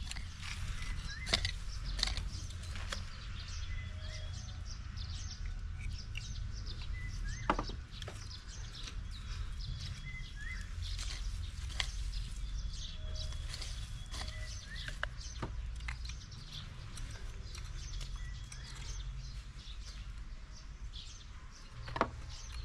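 Scattered knocks and scrapes of a short-handled hand hoe digging into soil and clods during potato harvesting, with birds chirping throughout over a low rumble.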